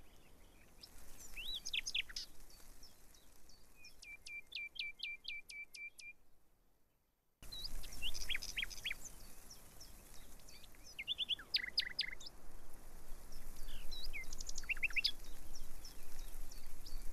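Small birds chirping and calling, many short whistled notes. About four seconds in comes a quick run of eight or so repeated notes; the chirping fades out around seven seconds and then cuts back in abruptly, busier than before.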